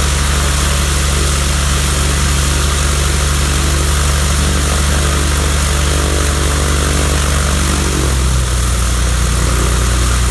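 Cessna 172F's Continental O-300 six-cylinder piston engine and propeller running steadily, its pitch dropping slightly about eight seconds in as the engine speed eases off.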